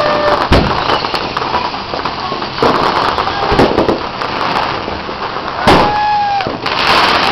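A dry Christmas tree burning fiercely, with a dense, steady crackling of burning needles and branches. Several louder sharp pops or bangs go off through it, the loudest about three quarters of the way in.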